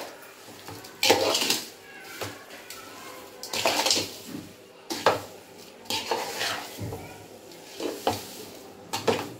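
Metal spatula scraping and knocking against a large aluminium kadai as grated carrots cooking with sugar are stirred, in uneven strokes about once a second.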